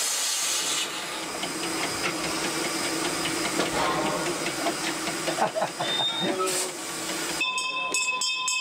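Steam locomotive hissing steadily, heard in its cab. A little over seven seconds in, the sound cuts abruptly to a hand bell ringing.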